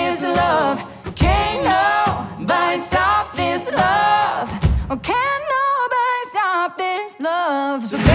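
Background song: sung vocals with light accompaniment, the low backing dropping away about five seconds in to leave mostly voice.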